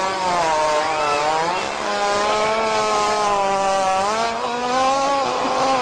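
A hippopotamus breaking wind: one long, loud, buzzing fart that wavers in pitch and rises a little near the end.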